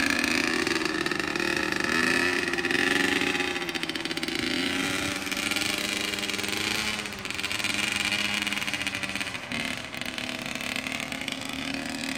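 Freshly rebuilt 2003 Honda CR85R's 85 cc two-stroke single-cylinder engine running on its first ride, the revs rising and falling as it is ridden, with a couple of brief drops in revs past the middle.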